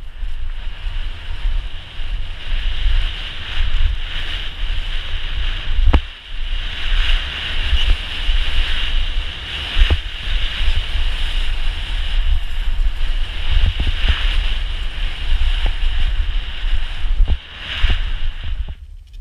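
Mountain bike descending a rough dirt downhill trail, heard from the rider's camera: heavy wind buffeting on the microphone with a steady high-pitched rattle from the moving bike, and a few sharp knocks as it hits bumps.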